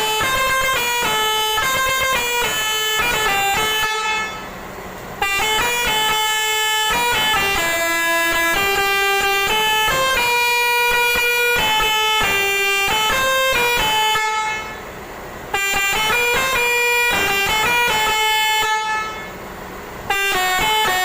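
Six-trumpet Indian Basuri telolet horn, a multi-tone bus horn, playing a tune note by note, with three short pauses between phrases.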